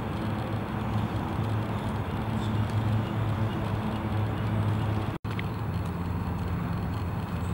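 Steady rumble of distant road traffic with a low hum, dropping out for an instant about five seconds in.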